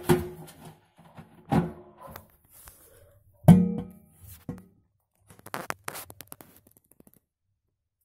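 Irregular knocks and thuds of something tumbling inside a stainless steel washing machine drum as it turns, some with a short metallic ring. The loudest knock comes about halfway through, followed by a quick run of lighter clicks, and then the sound stops.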